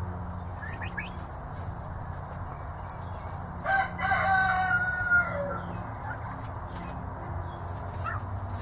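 Young domestic turkeys calling while they peck at grass, with a few short peeps and one loud, drawn-out trilling call about four seconds in that drops in pitch at its end.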